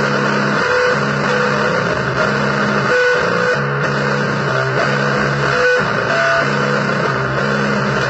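Electric guitar playing blues: a low riff repeating in a steady pattern with single higher notes picked over it, all in a thick, noisy tone.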